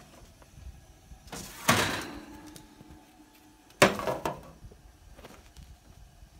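Kitchen oven's metal rack and baking sheet being handled with an oven mitt: a scraping metal slide about a second and a half in, then a sharp clank with a short rattle about four seconds in.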